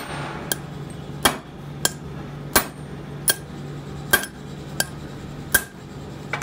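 Hammer blows on a steel drift set in a diesel cylinder head's injector bore, driving out the old copper injector sleeve, which had been leaking and cracked. About nine sharp metallic strikes, roughly two-thirds of a second apart, over a steady low hum.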